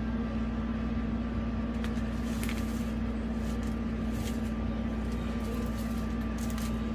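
A steady low hum, with a few faint crinkles and clicks as the bubble-wrapped parcel is handled and scissors are brought to its plastic wrap.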